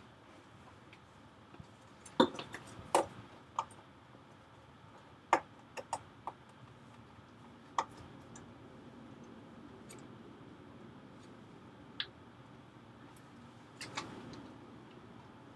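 Irregular sharp clicks and light knocks from hands handling the computer hardware, such as connecting the power cord and pressing the power button. They come in a cluster over the first several seconds and a few more follow later.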